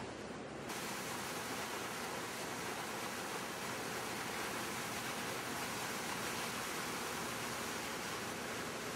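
Foaming water churned up alongside a tugboat's hull and in its wake, a steady rushing that turns brighter and fuller about a second in.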